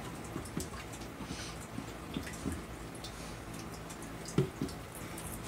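Small clicks and light knocks as a plastic pipe adapter with a brass hose barb and clear vinyl tubing are handled and worked together, the sharpest knock a little past four seconds in. A faint steady low hum runs underneath.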